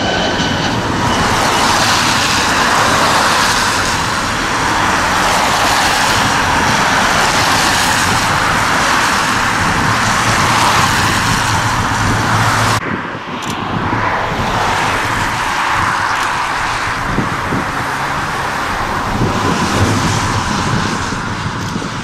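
Jet airliner engines roaring as an Airbus A320 passes low on approach. About halfway through, a sudden cut to a steadier, slightly quieter jet engine noise from an airliner on the runway across the airfield.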